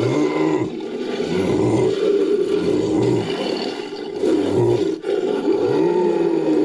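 Creature sound effect made from layered big-cat roar recordings: a run of overlapping low roars, each rising and falling in pitch, back to back without a break.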